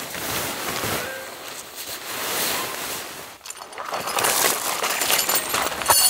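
Tent rain-fly fabric rustling and swishing in waves as it is handled, turning to crinkling with small clicks in the second half.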